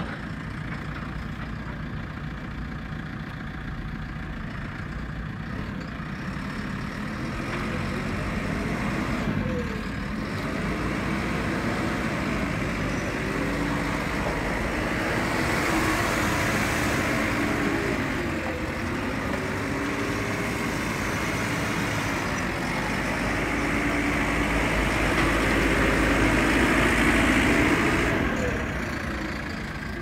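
JCB 3CX backhoe loader's four-cylinder diesel engine running as the machine drives and manoeuvres, its note wavering up and down. It grows louder through the middle and is loudest a couple of seconds before the end, then fades.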